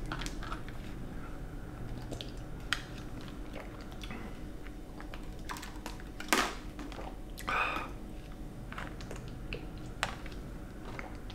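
A person drinking a shake from a plastic shaker bottle: a few scattered swallowing gulps and small clicks, several seconds apart.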